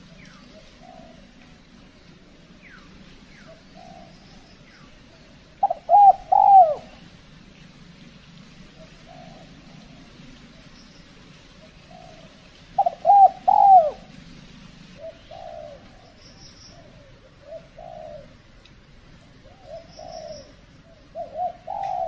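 Spotted doves cooing: loud three-note coo phrases about six seconds in and again about thirteen seconds in, a third near the end, with fainter coos between them. Faint high chirps of a small bird now and then.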